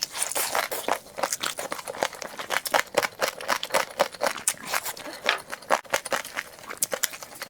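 Close-miked chewing of chicken: irregular crunches and mouth clicks, several sharp snaps a second.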